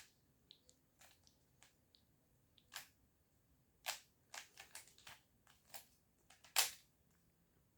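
Plastic 3x3 Rubik's cube being turned by hand: its layers clack in short, irregular clicks, sometimes two or three close together, the loudest about two-thirds of the way through.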